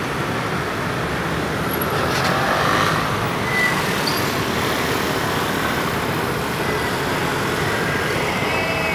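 Road traffic around a station forecourt: a steady wash of car and engine noise that swells slightly a couple of seconds in, as a vehicle passes.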